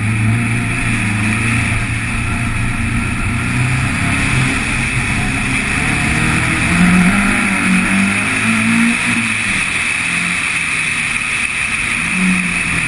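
Car engine running hard at speed on a race lap, with a steady rush of wind and road noise. The engine note shifts in pitch several times around the middle and again near the end.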